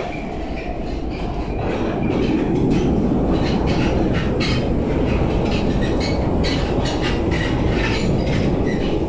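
Eurotunnel shuttle train running through the Channel Tunnel, heard from inside a carriage: a steady rumble of wheels on rail with irregular rattling clicks, louder from about two seconds in.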